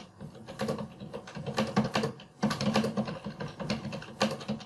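Typing on a computer keyboard: quick runs of keystrokes with a short pause about halfway through.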